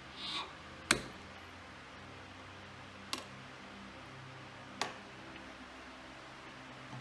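Hard plastic clicks from an EKEN H9R action camera's clear waterproof housing as its back-door latch is unclipped and the door opened. A sharp, loud click comes about a second in, then two softer clicks near three and five seconds, over a faint steady hum.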